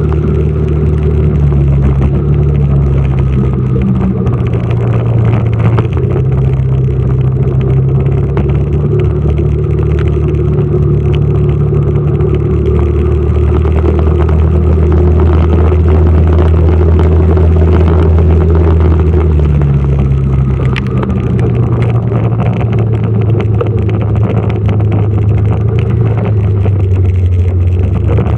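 Motorcycle engine running steadily while riding, its note creeping up and then dropping about two-thirds of the way through.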